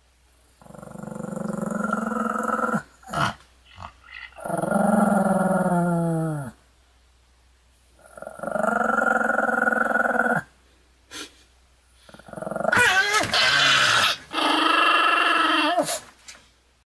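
Pomeranian growling in four long, drawn-out growls of about two seconds each, with short sounds in between.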